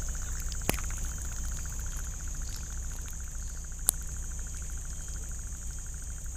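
Jungle insects: a steady high-pitched drone together with a fast, evenly pulsing chirp, over a low steady rumble. Two sharp clicks, one a little under a second in and one about four seconds in.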